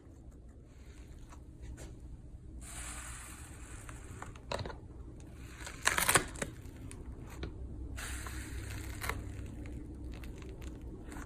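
Slime being squished and stretched by hand, with stretches of crackling hiss and a few sharp pops. The loudest pops come about six seconds in.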